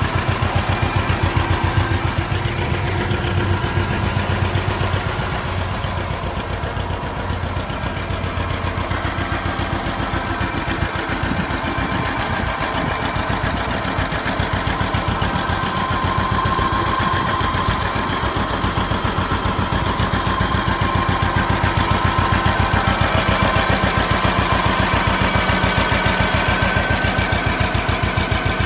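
John Deere 520 tractor's two-cylinder engine running steadily at low speed, an even, rapid chain of firing pulses.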